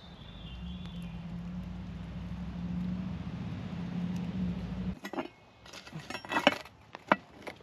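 A steady low rumble that cuts off suddenly about five seconds in, followed by a handful of sharp clinks of dishes and utensils.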